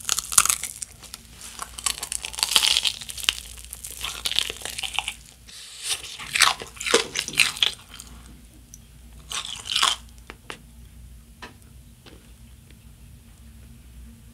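Close-miked crunching and chewing of a deep-fried corn dog's crisp batter crust: loud crackly bites through the first half and again about six and nine seconds in, then quieter, sparser chewing.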